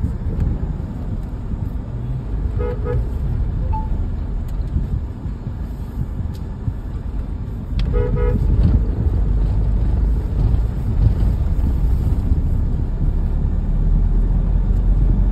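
Engine and road noise inside a moving car's cabin, with a short double toot of a car horn about three seconds in and again about eight seconds in.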